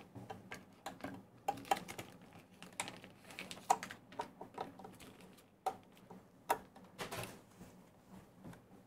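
Irregular light clicks and taps of small R2-D2 model kit parts being handled and fitted together, with the sharpest clicks a little past the middle.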